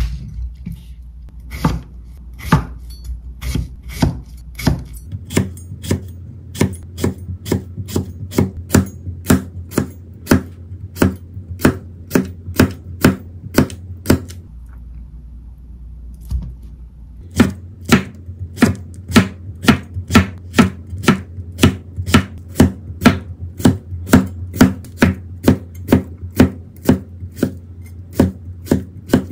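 Kitchen knife slicing cucumber on a cutting board in steady strokes, about two a second, with a pause of about three seconds midway.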